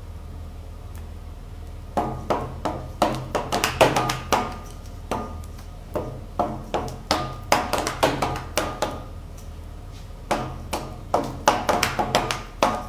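Wooden pepper mills tapped and clacked in a quick trick routine: three runs of sharp taps, several a second, some ringing with a short metallic ping.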